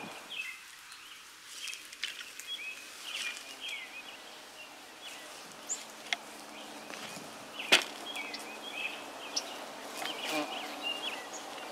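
Bees foraging in a flowering holly tree, a faint steady hum, with birds chirping throughout. A few sharp clicks, the loudest about two-thirds of the way through.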